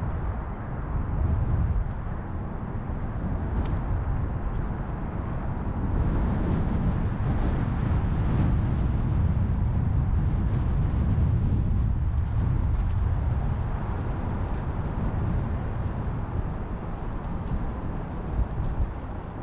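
Wind buffeting the camera's microphone: a steady, low, uneven noise that swells and eases.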